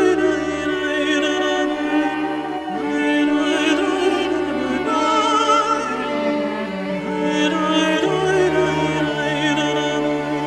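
Background music with operatic-style singing, long held notes with vibrato over a sustained accompaniment.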